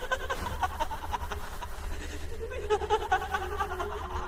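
A woman's laughter sound effect in short, quick, high-pitched bursts, over a steady low drone.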